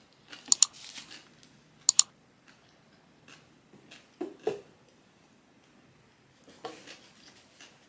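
Close-up eating sounds: sharp crunchy clicks of chewing, two loud double crunches in the first two seconds, then softer, sparser mouth sounds.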